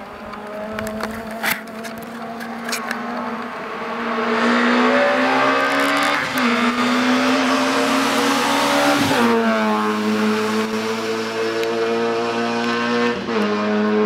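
Rally car engine at full throttle, growing louder as it approaches and climbing in pitch through the gears, with abrupt drops at three upshifts. A few sharp cracks sound in the first three seconds.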